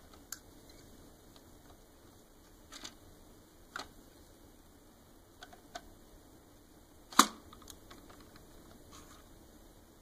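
Scattered light clicks and taps of a screwdriver working small screws out of the plastic gearbox cover of a Roomba brush assembly, about eight in all, with one sharp, louder click a little past seven seconds in.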